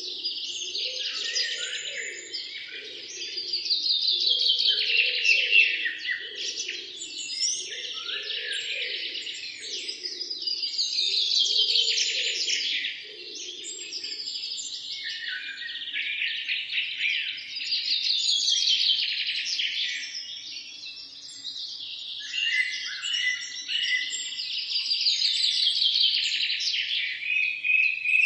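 Songbirds singing: a trilled song that falls in pitch, repeated every few seconds, with other chirps between. A lower pulsing call runs under it through the first half, then stops.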